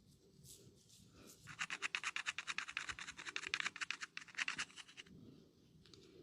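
Fingers scratching quickly through hair on the scalp, as in a head massage. There are fast scratching strokes, about nine a second, starting about a second and a half in and stopping after roughly three and a half seconds.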